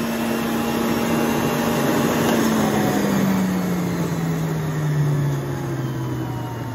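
Electric centrifugal juicer running while fruit is fed through it, a harsh shredding noise over a motor hum that drops slowly and steadily in pitch.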